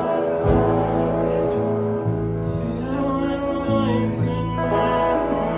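A song sung with acoustic guitar accompaniment, the voice holding long notes over strummed chords.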